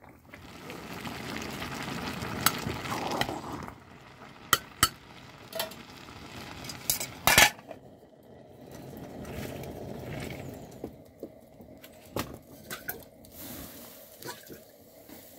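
Metal pot lid and cooking pot clinking and clattering as the lid is handled and set on a pot of rice on a wood-fired mud stove, with several sharp clinks and the loudest clatter about halfway through. A steady rushing hiss rises and falls beneath it twice.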